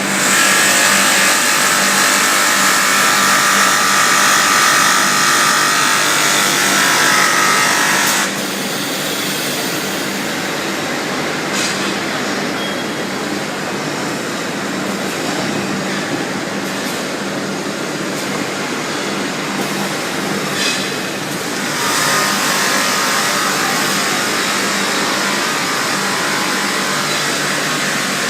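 Automatic rotary inside-sanding machine running, a steady motor hum under the loud grinding hiss of abrasive working the inside of metal cookware. The grinding drops back about eight seconds in and comes back strongly a few seconds before the end.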